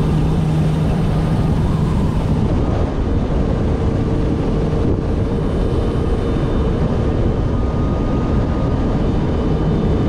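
The supercharged four-cylinder engine of a 2022 Kawasaki Ultra 310 LX jet ski running steadily at a cruise of about 60 km/h, under a steady rush of water and wind noise. The low engine tone fades about two seconds in and comes back near the end.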